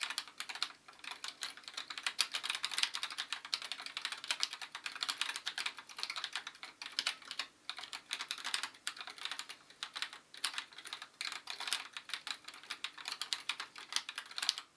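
Fast continuous typing on an Esrille NISSE mechanical keyboard with light 35 g Gateron Clear linear switches: a dense patter of key clicks, with a few short pauses.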